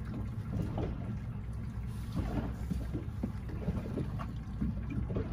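Steady low rumble aboard a boat, with scattered faint light knocks or splashes over it.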